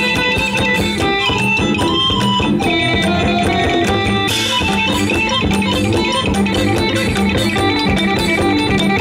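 Live Isan (northeastern Thai) folk music ensemble playing an instrumental passage: a plucked string melody over drums with a steady beat.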